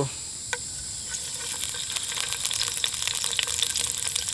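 Boiled rib pieces going into hot cooking oil in a wok-style pan. There is a light knock about half a second in, then the oil starts to sizzle and crackle from about a second in and keeps on as the meat begins to brown.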